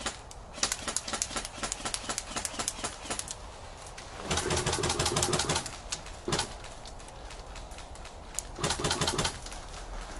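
Airsoft guns firing: a run of rapid shots in the first three seconds, then a full-auto burst of about a second and a half some four seconds in, a short burst near six seconds, and another burst near nine seconds.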